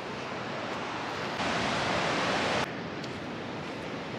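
Steady rushing noise of wind and ocean surf on an exposed coastal cliff. About a second and a half in, it turns louder for a little over a second, then drops back suddenly.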